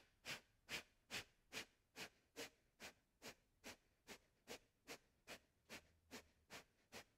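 A person doing yogic fire breath: rapid, forceful exhales pumped out in a steady rhythm of about two and a half sharp puffs a second, growing slightly fainter over the set.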